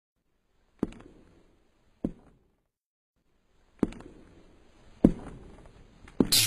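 Five sharp percussive hits, spaced a second or more apart, each with a short fading tail. Music with a steady tone comes in right at the end.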